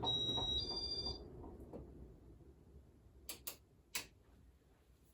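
Casablanca California Zephyr ceiling fan switched off: two short electronic beeps, then the motor hum dies away while a light ticking, about three a second, slows and fades as the fan coasts down. A few sharp clicks come near the end.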